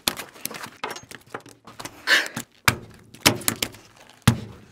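Irregular sharp knocks and thumps on a wooden cutting board as a live striped fish flops about and is struck with a knife, the heaviest thump about four seconds in.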